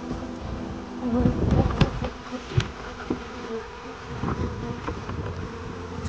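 Honeybees buzzing in a dense, many-toned hum around opened hives, with a few sharp knocks and bumps of hive boxes being handled between about one and three seconds in.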